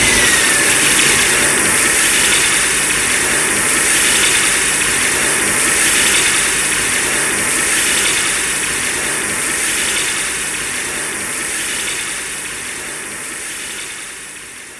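Kiryu (MechaGodzilla 3) film sound effect: a long, steady mechanical hiss with a faint swell about every two seconds. A brief falling whistle sounds at the start, and the hiss fades gradually over the last few seconds.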